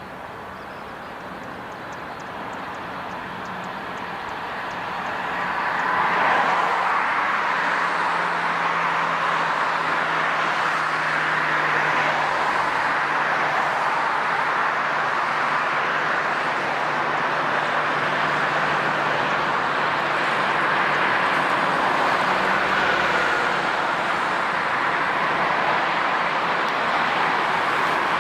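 Jet airliner engines, growing louder over the first six seconds and then holding steady with a faint low hum beneath.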